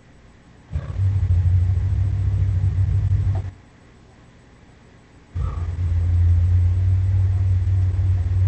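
Gorosaurus monster sound effect: two long, deep rumbling growls, each about three seconds, with a short pause between them.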